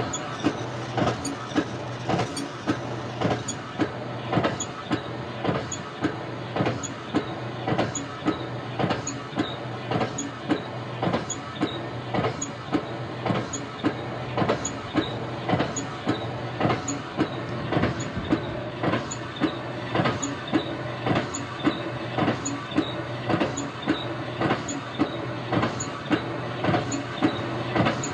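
Automatic hand pump running steadily: a constant mechanical hum with a regular knock on each stroke, about three strokes every two seconds.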